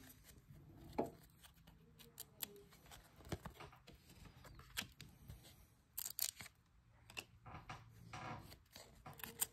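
Stiff, glossy Topps Chrome baseball cards being flipped through by hand, sliding and flicking against one another: a scatter of faint clicks and short scrapes, busiest about six seconds in.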